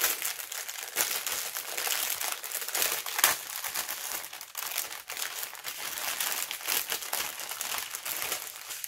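Clear plastic packaging crinkling and crackling as it is opened by hand and a strip of sealed bags of diamond-painting drills is pulled out of it: a dense run of small, sharp crackles.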